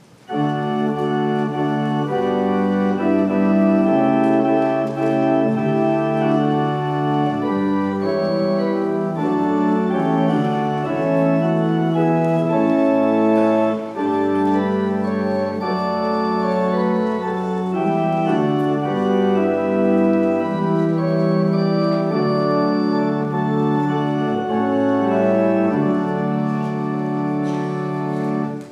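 Church organ playing a hymn tune in full sustained chords, with a short break between phrases about halfway through. The music starts abruptly and cuts off suddenly at the end.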